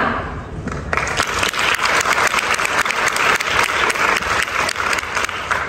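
Audience applauding: a dense patter of many hands clapping that starts about a second in and eases off near the end.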